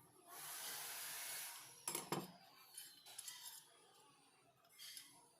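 A short hiss of about a second, followed by several sharp metallic clinks and taps as metal parts of an old pipe wrench are handled and set down on a hard surface.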